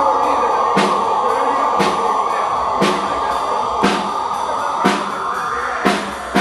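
Live rock band: a sustained electric guitar sound held under evenly spaced drum hits, about one a second.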